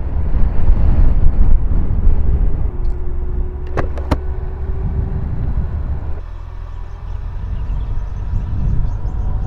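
Low rumble of a moving vehicle, with three quick sharp clicks about four seconds in.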